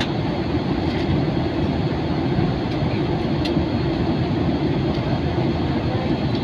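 Steady low rumble of a jet airliner's cabin noise in flight, engine and airflow noise heard from inside the cabin, with a few faint ticks.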